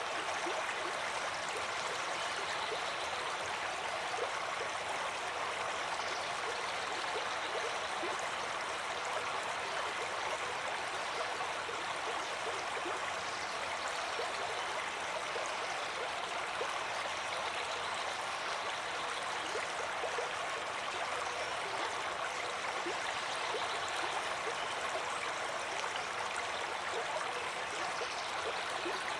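Stream water flowing steadily, an even, continuous rush with fine gurgles.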